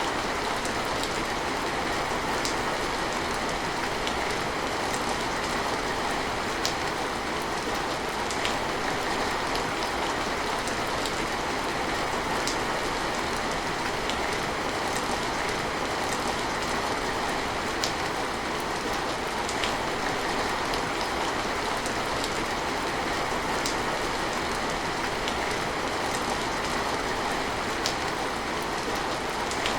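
Steady, heavy rain falling, with scattered sharp ticks of individual drops striking a hard surface.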